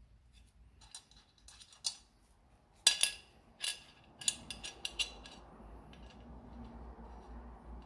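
Irregular metallic clicks and clinks of a hand tool against a motorcycle's alternator cover and stator as the stator is worked loose from the cover, the sharpest clink a little under three seconds in. A low rumbling noise runs underneath through the second half.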